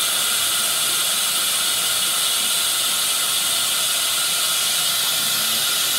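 Dental high-volume suction hissing steadily at the teeth.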